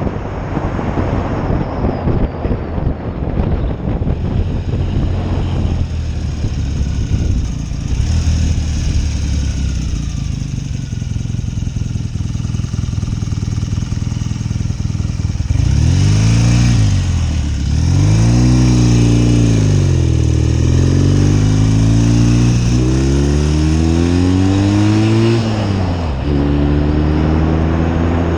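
1972 BSA Lightning 650 parallel-twin engine running under way, with wind rushing on the microphone. For the first half the wind covers most of the engine note. After that the engine clearly rises in pitch and drops back several times with the throttle, then holds a steadier, higher note near the end.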